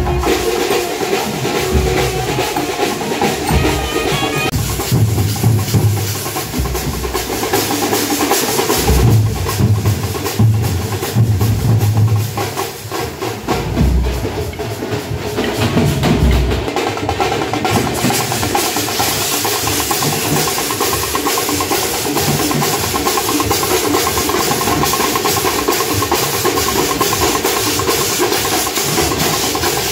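Tamate frame drums played in a fast, dense rhythm, with heavy deep strokes in the first half and quicker, even strokes from about halfway on.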